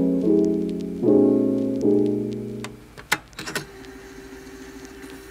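Background piano music: slow sustained chords that fade out a little past halfway, followed by a few sharp clicks and a soft held note.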